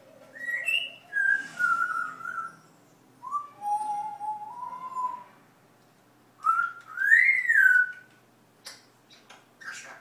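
African grey parrot whistling: three separate whistled phrases whose pitch glides up and down, followed by a few short clicks near the end.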